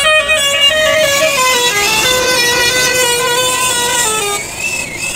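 Bus musical horn playing a melody of held notes that step up and down in pitch.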